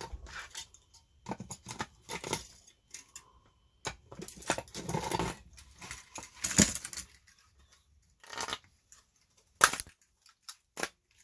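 Plastic and metal parts of a radio being pried apart and handled by hand: irregular clicks, scrapes and rustles, with a couple of sharp clacks.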